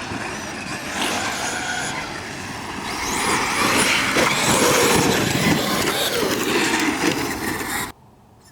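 Radio-controlled cars racing, their electric motors whining with wavering pitch over a dense rushing noise. The sound grows louder about three seconds in and cuts off abruptly near the end.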